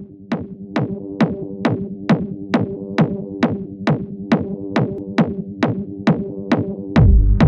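Electronic dance music: a steady beat of about two hits a second, each hit a quick downward-sweeping zap, over a held chord. About seven seconds in a deep bass comes in and the track gets louder.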